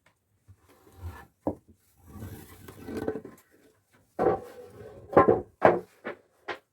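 Pieces of wood being handled: scraping and rubbing in the first half, then a quick run of sharp wooden knocks.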